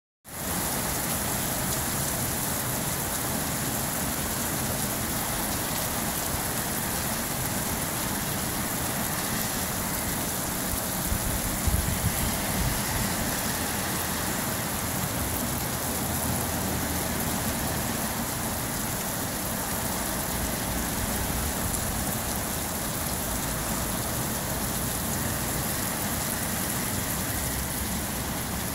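Heavy rain pouring down onto wet asphalt pavement, a steady even hiss of drops splashing. A brief low rumble rises near the middle.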